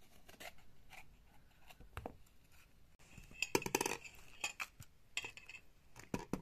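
Light clicks and knocks of bell peppers and a knife handled on a plastic tray, with a denser, louder crackling burst about three and a half seconds in as a pepper is broken open.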